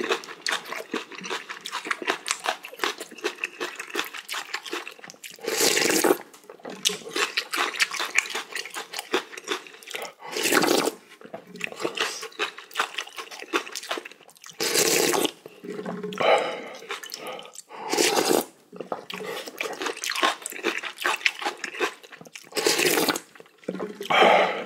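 A person slurping spoonfuls of spicy ramen broth from a wooden spoon: a loud slurp every few seconds, with small wet mouth clicks in between.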